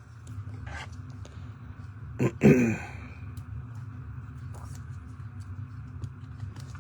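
Trading card packs and cards being handled: small scraping and crinkling clicks over a steady background hum. About two seconds in there is one short, loud voice-like sound.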